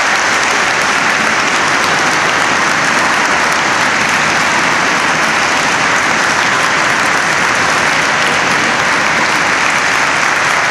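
Large audience applauding, with steady, sustained clapping that neither rises nor fades.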